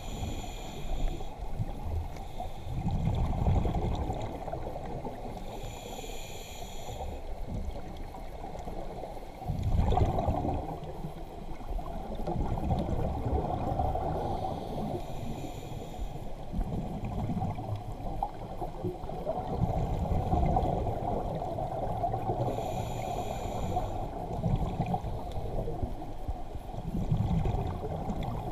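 Muffled underwater noise heard through a camera's waterproof housing: a steady rushing and surging of water, with a brief hiss recurring every several seconds.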